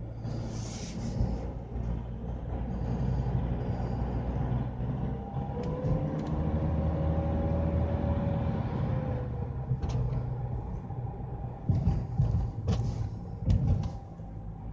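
Mercedes-Benz B-Class running with a steady low drone and a whining grind from its CVT gearbox under acceleration; the whine climbs in pitch about six seconds in and sinks again a few seconds later. A few sharp clicks follow near the end.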